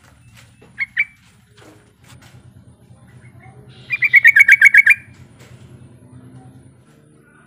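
Yellow-vented bulbul calling: two short notes about a second in, then a loud, fast run of about a dozen bubbling notes lasting about a second. This is the trucukan's challenge call, used to draw other bulbuls into answering.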